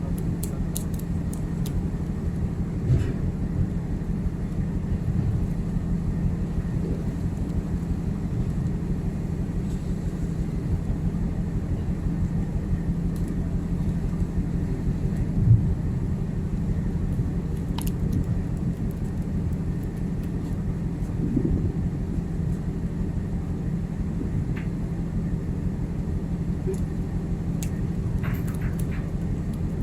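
Steady low drone of a ship's running machinery, with a few scattered clicks and light knocks; one knock about halfway through stands out.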